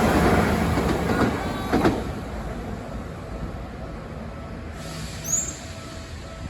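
Electric commuter train running past a level crossing, its wheel and rail noise loud at first, then dying away over about two seconds as it moves off.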